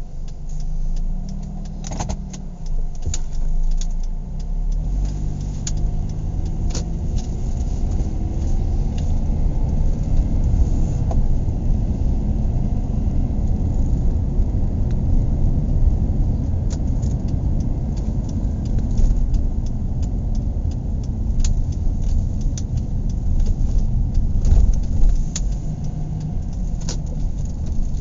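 Car driving, heard from inside the cabin: the engine note rises as it picks up speed over the first several seconds, then settles into a steady low road rumble with scattered small clicks and rattles.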